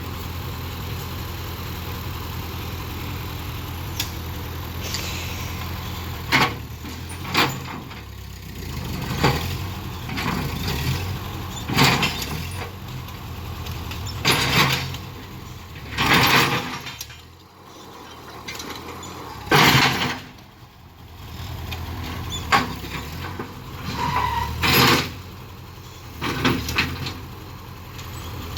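A small engine running steadily, with a dozen or so loud, short bangs and rushes of noise breaking over it from a few seconds in until near the end.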